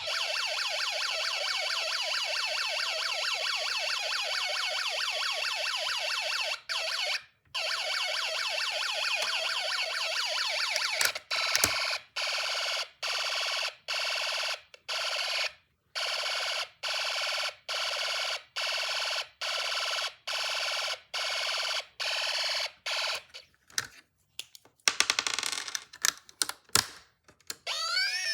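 Electronic police-siren sound from a Snap Circuits Junior alarm IC played through the kit's small speaker. A fast warbling tone is broken twice around 7 s in, changes about 11 s in to on-off beeps about one a second, and breaks into short irregular bursts near the end.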